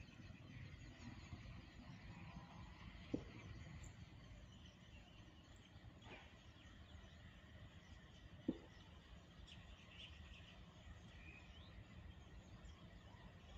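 Near silence: faint open-air ambience with a few faint bird chirps near the end, broken by two short sharp knocks, about three and eight and a half seconds in.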